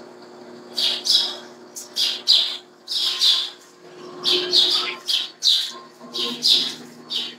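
A bird chirping over and over: short, sharp high calls, often in pairs, one or two a second, over a faint steady low hum.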